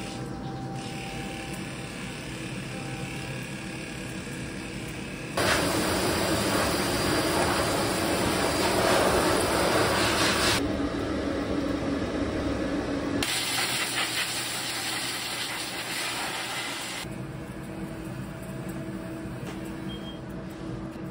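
Water running into a plastic basin, a steady rushing splash that starts suddenly about five seconds in and stops about seventeen seconds in, changing in tone twice along the way.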